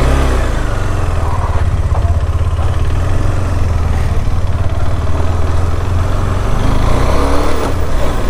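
KTM 390 Adventure's single-cylinder engine running as the motorcycle pulls away from a stop and picks up speed.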